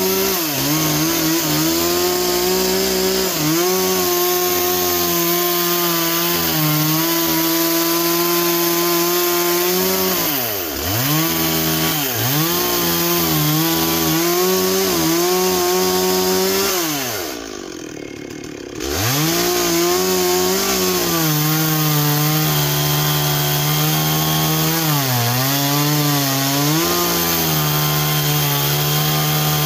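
Gas chainsaw cutting into a large log. The engine runs near full throttle and its pitch sags and recovers again and again as the chain bites into the wood. A little past halfway the throttle drops to idle for about a second before the saw revs back up and cuts on.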